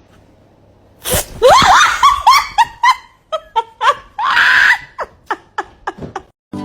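Loud, excited vocal cries: a sudden burst about a second in, then a run of short, high-pitched cries that bend in pitch, with a second noisy burst in the middle.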